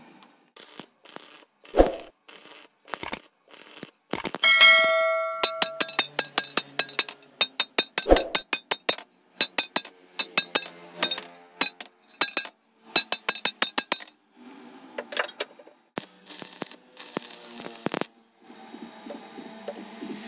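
Hammer blows on a steel crowbar clamped in a vise: sharp metallic strikes, one ringing out with a clear bell-like tone, then rapid runs of blows several times a second.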